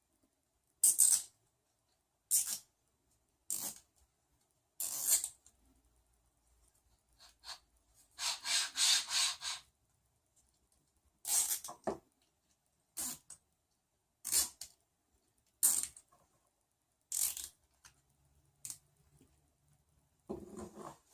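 Nylon zip ties being pulled through their locking heads, a string of short zips with pauses between them. One longer pull, about eight seconds in, ratchets through many teeth in a row.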